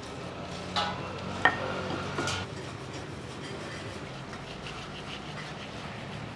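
A few light clinks and knocks of tableware, three in the first two and a half seconds, one of them ringing briefly, over a steady low hum.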